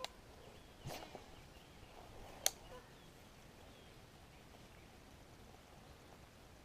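Faint outdoor background hiss with three short sharp clicks or taps in the first few seconds, the loudest about two and a half seconds in.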